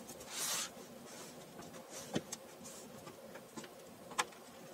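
Handling noise as a laptop's bottom cover is pressed back into place and a small screwdriver is set to its screws: a short scrape or rub about half a second in, a sharp knock about two seconds in, and a light click near the end.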